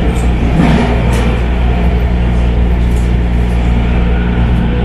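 Steady running noise inside a MARTA rail car in motion: the train's motors humming low under the rumble of wheels on the rails, with a brief clack about a second in.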